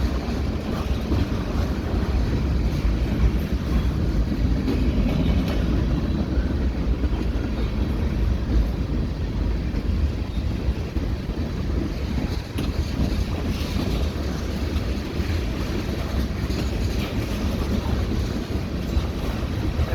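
Freight cars of a slow-moving mixed freight train rolling past at about 10 km/h: a steady low rumble of steel wheels on the rails, with wind on the microphone.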